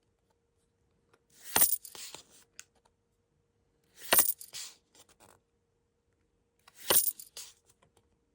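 Three sharp coin-like clinks, evenly spaced about two and a half seconds apart, each followed by a short rattle.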